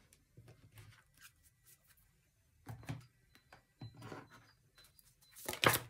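Tarot cards being handled on a cloth-covered table: faint rubs and slides of card against card and cloth, a few soft taps, and a louder swish of a card near the end.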